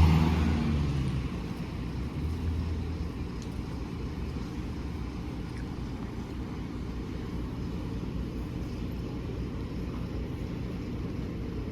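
Steady low rumble of a bus heard from inside the passenger cabin, a little louder for the first second or so before it settles to an even drone.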